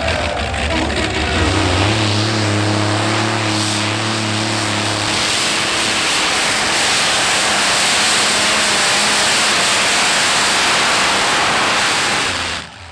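Heavy modified pulling tractor's engines running loud and steady under load during a pull. The sound breaks off abruptly just before the end.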